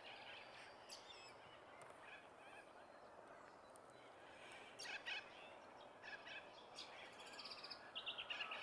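Wild birds calling faintly: short high chirps scattered through, with a quick rattling trill about seven seconds in.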